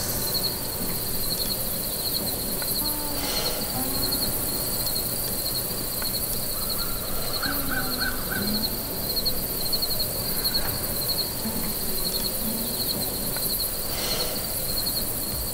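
Outdoor ambience of insects trilling in a steady, pulsing chorus, with scattered faint bird calls and a short run of chirps about halfway through.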